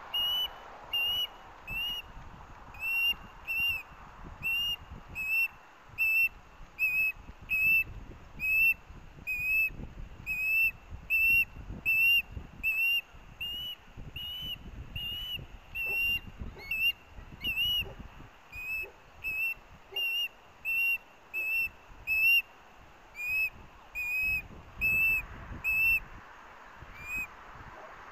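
Juvenile osprey giving a long, steady series of short, high whistled begging calls, about two a second, while its sibling eats the fish delivered to the nest.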